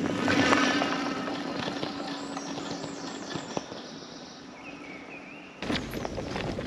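Quiet woodland with a few small bird chirps and a short whistle. A steady hum fades away over the first few seconds. Near the end it cuts abruptly to the rushing noise of riding the e-bike along a dirt track, tyres and wind on the handlebar-mounted camera.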